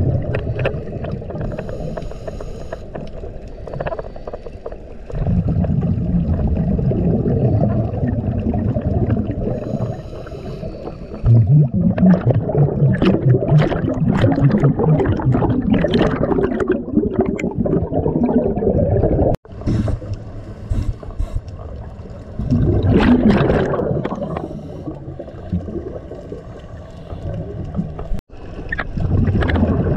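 Muffled underwater sound inside a camera housing: scuba divers' exhaled bubbles gurgling and rumbling in long bursts of several seconds, over a low steady rush of water.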